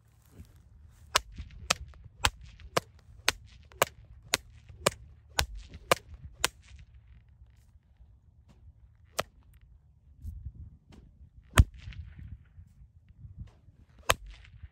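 A whip being cracked: a quick run of about eleven sharp cracks, roughly two a second, then three more spaced a few seconds apart, the loudest near the end.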